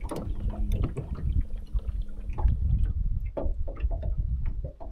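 Wind buffeting the microphone and water lapping against a jon boat's hull, with scattered small knocks and taps.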